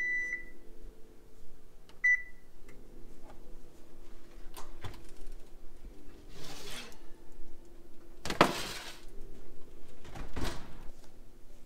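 Electric oven beeping twice as the bake finishes, over a steady low hum. Then the oven door opens and a foil-lined metal baking sheet of cookies is pulled off the rack and set on the glass stovetop, with three clattering, scraping noises. The middle one, a little past the halfway point, is the loudest.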